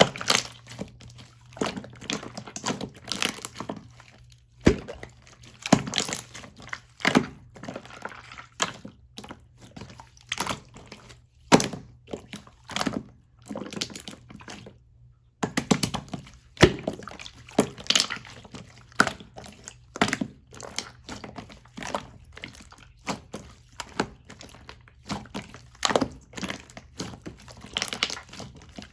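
Large batch of clear slime being squished, folded and stretched by hand, making an irregular run of sticky pops and clicks with a brief pause about halfway through.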